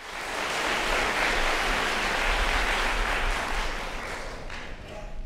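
Audience applauding in a concert hall, dying away over the last second or so.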